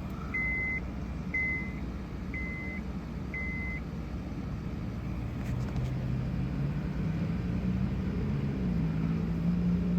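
Four short, high electronic beeps about a second apart, from a car's warning chime with the ignition switched on, over a steady low hum. Near the end a low tone in the hum steps up in pitch.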